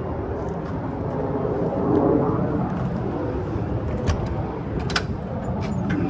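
Steady low rumbling background noise, with two short sharp clicks about four and five seconds in.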